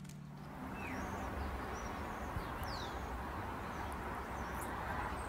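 The tail of instrumental music dies away in the first half second. Steady outdoor background noise follows, with a few brief bird chirps, one a quick falling whistle.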